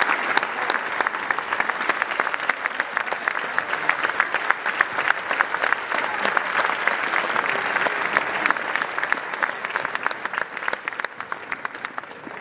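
Audience applauding: dense clapping from many hands that slowly thins and fades toward the end.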